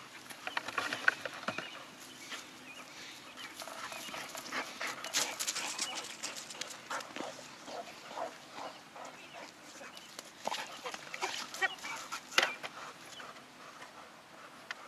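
Black Labrador retriever bird dogs making short, repeated vocal sounds, with scattered sharp clicks and knocks.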